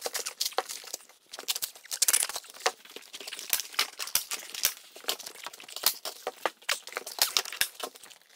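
Heavy felt paper (30-weight roofing felt) crinkling and crackling as it is unrolled and bent around a fireplace base, with many sharp clicks.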